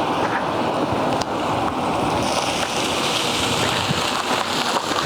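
Steady rushing wind and road noise of a vehicle driving along.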